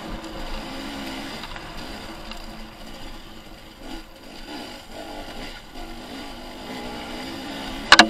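Dirt bike engine running along a trail, its pitch rising and falling with the throttle. A single sharp knock comes just before the end.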